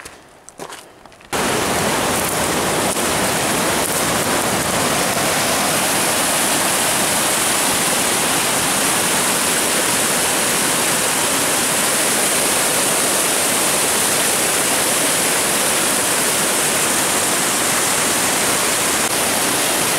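A few faint footsteps on a rocky trail, then, starting abruptly about a second in, the loud steady rush of a mountain stream cascading over granite boulders.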